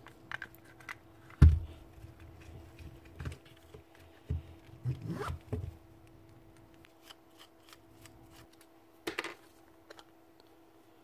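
Parts of a dismantled Milwaukee M12 CH SDS hammer drill being handled: scattered plastic and metal clicks, knocks and scrapes as the motor and gearbox are worked out of the split housing. The loudest is a single knock about a second and a half in.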